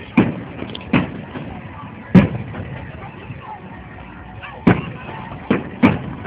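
Aerial fireworks going off: six sharp bangs at irregular intervals, each with a short echoing tail. The loudest comes a little past two seconds in.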